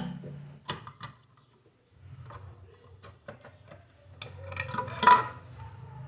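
Thin screwdriver levering at the plug-on start relay and thermal overload protector on a refrigerator compressor's terminals: a string of small clicks and scrapes, with a louder knock about five seconds in.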